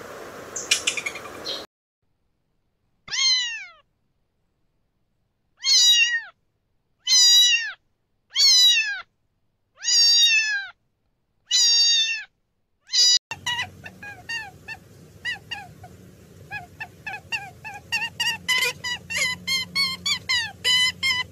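A cat meowing about seven times, each meow a single falling cry, roughly a second and a half apart. About thirteen seconds in a low hum begins, with quick high chirps several times a second that grow denser toward the end.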